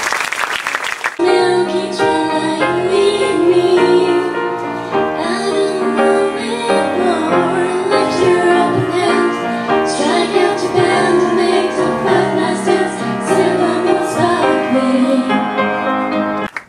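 Audience applause for about a second, then three women singing a song into microphones with piano accompaniment. The music stops abruptly just before the end.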